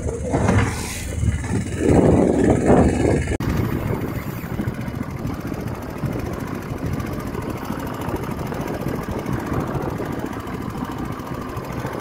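Small fishing boat's engine running, with loud noisy surges in the first three seconds. After a sudden change about three and a half seconds in, it runs evenly.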